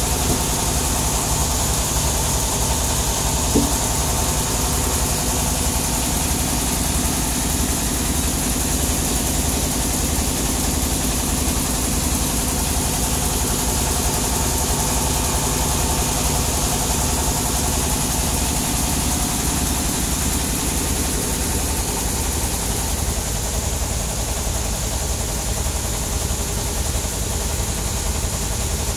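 Sawmill machinery engine running steadily at idle, not cutting, with an even low pulse. There is one brief knock about three and a half seconds in.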